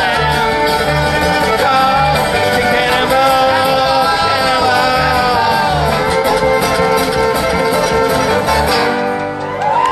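Live old-time string band playing: fiddle, mandolin and acoustic guitar over a steady bass beat, the tune ending about nine seconds in.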